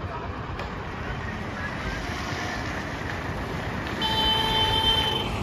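Tata Starbus minibus driving past close by, its engine and tyres running steadily, with a horn sounding for about a second near the end.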